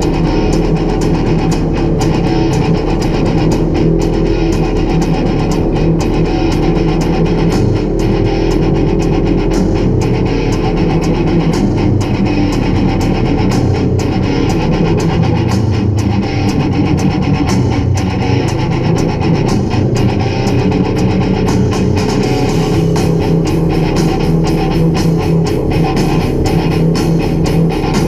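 Loud rock music led by guitar, with a steady beat.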